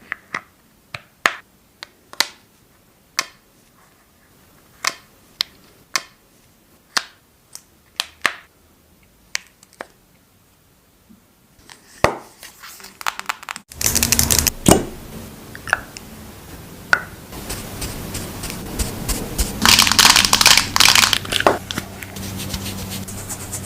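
Makeup items being handled. First comes a series of separate sharp clicks and taps, roughly one a second. About halfway through the sound changes abruptly to denser rubbing, crinkling and scratching, loudest a few seconds before the end.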